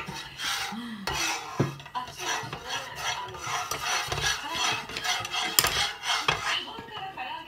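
Spatula scraping back and forth across the coated plate of a tabletop electric griddle in repeated rasping strokes, with a sharp tap about five and a half seconds in.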